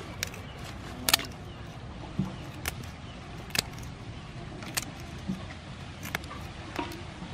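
Scissors snipping through raw blue crab shells as the crabs are cleaned: sharp irregular clicks and cracks, about one a second, with a few in quick succession, over a steady low background rumble.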